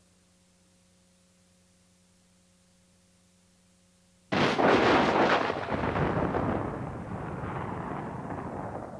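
Near silence with a faint steady hum, then about four seconds in a sudden loud rush of wind and road rumble on the camcorder's microphone from a moving car, slowly easing off.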